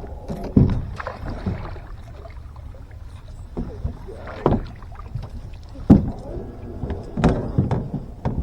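Irregular low thumps and knocks on a fishing boat, five or six over a few seconds, over a steady low rumble.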